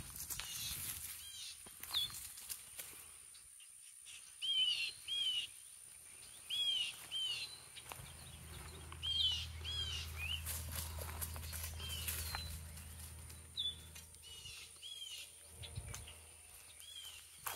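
A bird calling repeatedly with short arched chirps, often in pairs or threes, over outdoor background noise. A low drone rises in the middle and fades a few seconds later.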